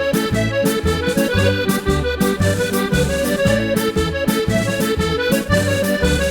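Accordion playing an Irish jig for country dancing, a melody over low bass notes and chords that repeat in an even, steady rhythm.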